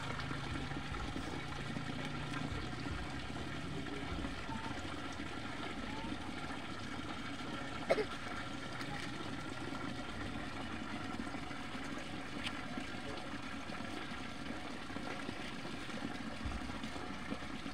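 Steady trickling water noise, with one sharp click about eight seconds in.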